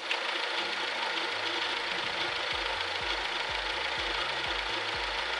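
Car engine idling steadily while the radiator is topped up with coolant, the running engine drawing the coolant into the cooling system.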